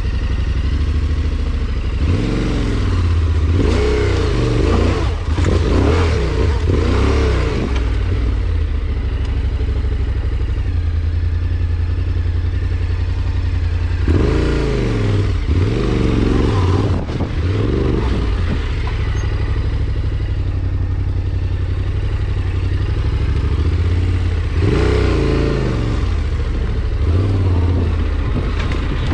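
A motor vehicle's engine runs continuously. In three spells it revs up and down repeatedly as it works under load.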